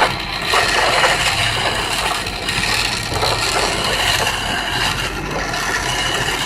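A chisel cutting green wood turning on a foot-driven treadle lathe with a flywheel: a rough, irregular scraping and shaving with repeated short scratches, over the noise of a busy hall.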